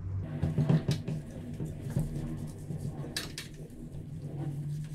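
Damp microfiber cloth in gloved hands wiping a chrome bathroom faucet, with scattered light clicks and knocks against the metal, the sharpest two close together about three seconds in, over a low steady hum.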